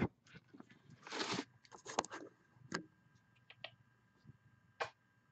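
A long-haired cat rubbing against the camera and its microphone: scattered brief rustles of fur brushing the mic, with a few light knocks as it bumps the camera.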